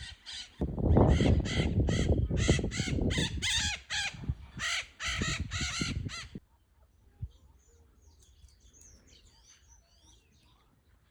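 A bird giving a rapid series of loud, harsh caws, about three a second, with a low rumble underneath, stopping about six seconds in. Faint chirping of small birds follows.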